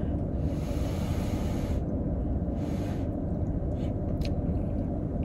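Steady low hum of a car engine idling with the air conditioning running, heard from inside the cabin. A soft hiss comes in about half a second in and again briefly around three seconds.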